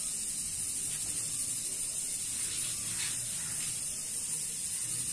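A steady high-pitched hiss with a low murmur beneath, and a couple of faint rustles about halfway through.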